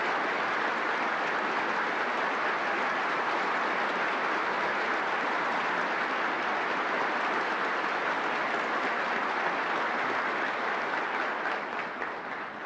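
Steady applause from a large audience, dying away near the end.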